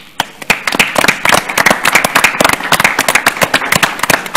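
Applause: many people clapping their hands, breaking out after a brief quiet and filling in to a dense, steady patter within the first second.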